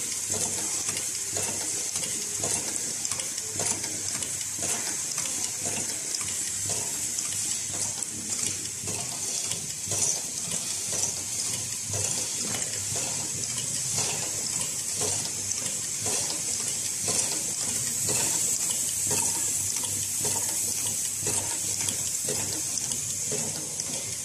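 Automatic pencil-sharpener assembly machine running: a steady high hiss over a low hum, with regular light knocks from its moving parts a little more than once a second.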